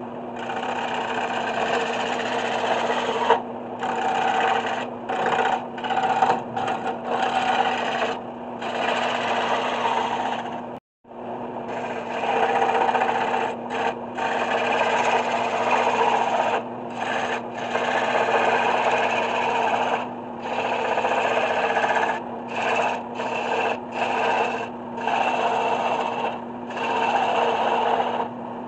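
Wood lathe running with a gouge cutting into a spinning wood blank, a steady motor hum under a rasping cutting noise that comes in bursts with short breaks as the tool is lifted off and put back.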